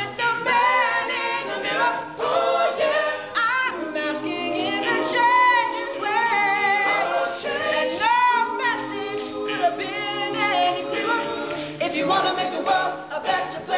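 All-male a cappella group singing live: backing voices hold chords while the lead voice bends and slides through ad-lib runs above them.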